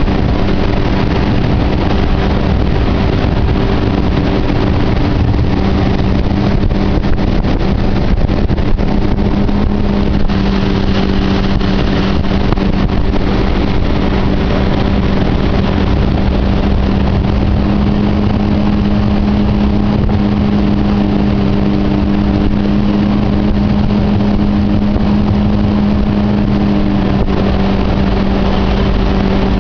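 Yamaha 60/40 jet outboard on a jon-style jet boat running steadily under way, with a constant engine drone and a dense rush of wind and water over it. The pitch rises slightly about halfway through.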